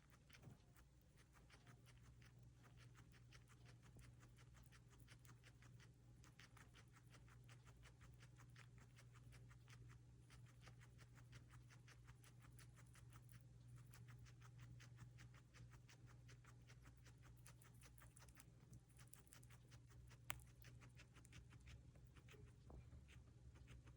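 Guinea pig chewing green papaya: faint, rapid crunching clicks, several a second, with a single sharper click about twenty seconds in.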